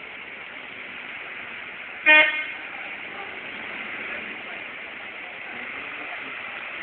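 A car horn sounds once, briefly, about two seconds in, over a steady outdoor hiss.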